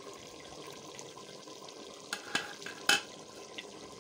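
Lobia dal simmering in an open metal cooking pot, a steady soft bubbling. A few sharp clicks come about two to three seconds in.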